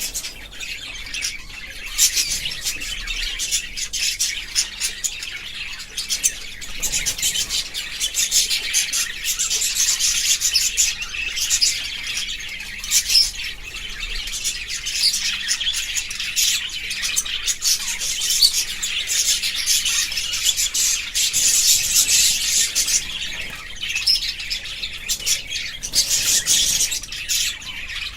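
Budgerigars chirping and chattering continuously, a dense stream of quick high chirps and warbles with occasional harsher squawks.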